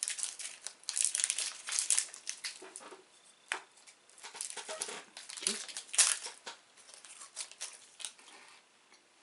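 Wrapper of a mini KitKat crinkling as it is unwrapped by hand, in irregular bursts of rustling that die away near the end.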